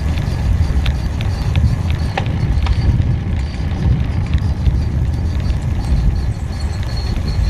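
Wind buffeting the microphone and tyre rumble as a bicycle rolls along a paved road, with light rattling clicks about three a second in the first few seconds.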